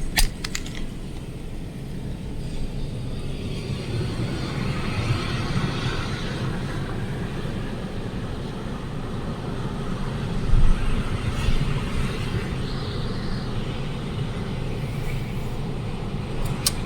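Strong gusty wind buffeting the microphone as a low rumble, swelling and easing, gusting hardest about ten seconds in.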